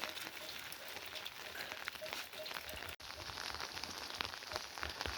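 Rain falling steadily, with many small drops ticking on surfaces. The sound cuts out for an instant about three seconds in.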